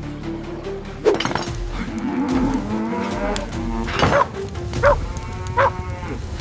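Cows mooing, several calls one after another, over a light background tune.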